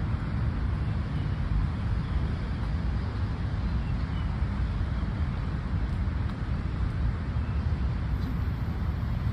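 Steady low rumble of outdoor city background noise, mostly distant road traffic, with no distinct events standing out.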